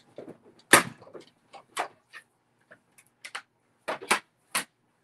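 A handful of separate sharp knocks and clicks, the loudest one under a second in and a quick pair near the end.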